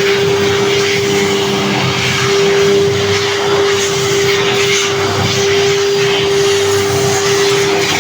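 CNC wood router spindle running at a constant speed: a steady high whine over a rough, even hiss of the machine working.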